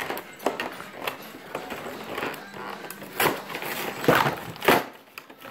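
Small packaging being handled and opened by hand: rustling with several sharp taps and knocks, the loudest about three and four seconds in.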